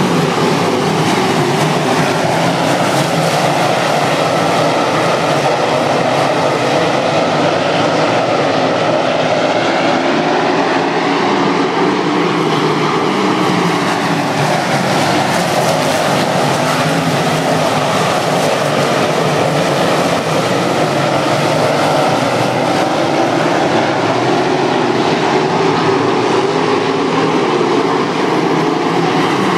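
A field of non-winged USAC sprint cars racing on a dirt oval, their V8 engines running hard together in a steady, loud din. The engine pitch swells and falls as the cars go down the straights and through the turns.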